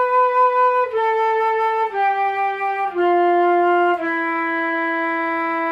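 Jupiter JFL700 concert flute playing a slow descending scale, one note about every second from B down through A, G and F, then holding low E for about three seconds.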